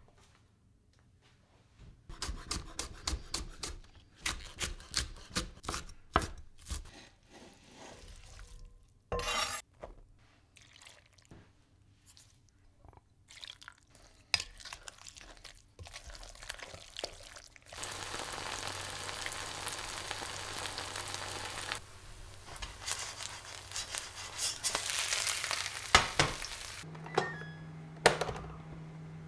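Kitchen sounds: a wooden spoon stirring kimchi and flour in a glass bowl, a busy run of clicks and scrapes. About eighteen seconds in comes a steady sizzle, typical of kimchi pancake batter frying in a pan. Near the end there are sharp clicks as the rice cooker's button is pressed.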